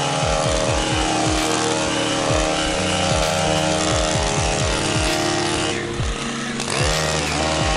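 Stihl gas string trimmer running at high throttle while cutting grass. It drops off briefly about six seconds in, then revs back up.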